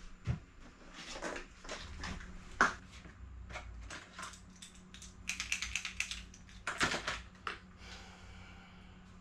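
Clear plastic tackle boxes and fishing lures being handled on a table: an irregular clatter of small plastic clicks and knocks.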